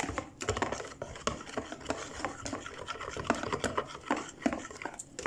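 Wire whisk beating pancake batter in a plastic bowl: a quick, uneven run of clicks and scrapes as the wires strike the bowl and slap through the wet batter.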